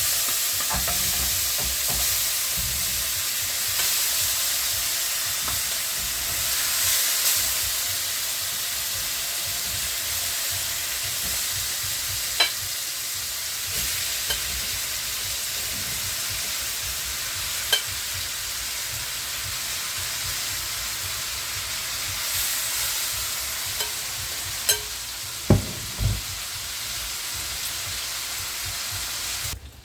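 Curry chicken frying in a pot, a steady sizzle, with a few sharp clicks against the pot as it is stirred.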